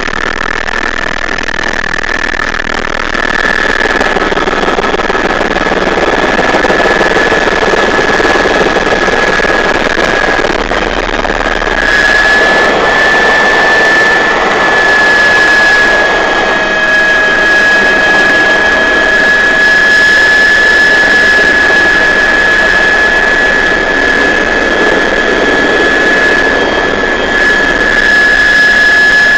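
Helicopter turbine engine running with a steady high whine over dense rotor and cabin noise, heard from inside the cabin. The whine rises a little about twelve seconds in, then holds steady.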